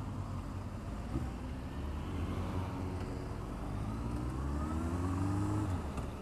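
Motorcycle engine pulling under acceleration, its pitch rising steadily for a few seconds and then dropping near the end as it changes gear, over a steady low rumble.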